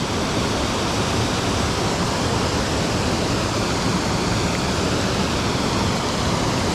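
Small stream waterfall pouring into a plunge pool: a steady rush of falling water.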